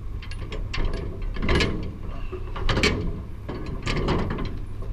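Hooklift loading a steel waste container: irregular metallic clanks, clicks and creaks of the container and hook gear over the steady low drone of the truck's engine and hydraulics.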